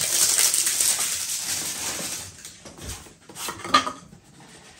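Packaging being unwrapped: a dense crinkling and rustling for about two seconds, then a few light knocks and clicks as a small product box is handled.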